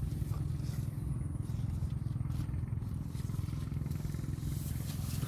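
A small engine drones steadily at a low pitch, with no change in speed.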